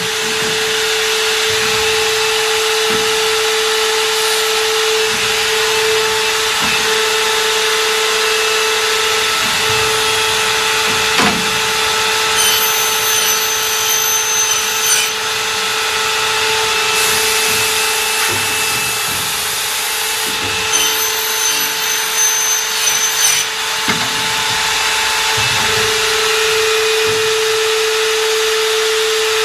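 CNC aluminium profile machining line running: a steady motor whine over constant hiss, with higher whines switching on and off, such as spindles and saws at work on the profile.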